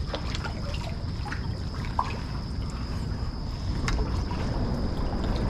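Water trickling and dripping around a kayak, with small splashes and light knocks scattered through, over a low steady rumble.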